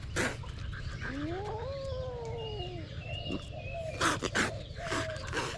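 An animal's long whining call, rising then falling in pitch over about two seconds, followed about four seconds in by several short harsh bursts, over a steady low hum.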